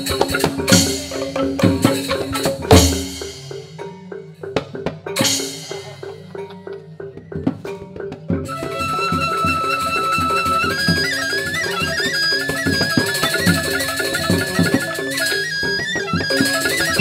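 Balinese joged gamelan music: bamboo xylophones and drums, with sharp accented strikes in the first few seconds. Around halfway a high bamboo flute melody comes in and carries on over the rhythm.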